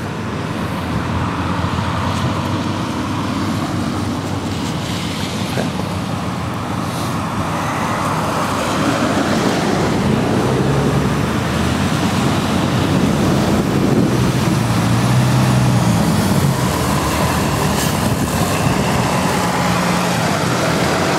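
Road traffic passing. About halfway through, a heavy truck's engine comes close and its hum grows louder, then eases off near the end.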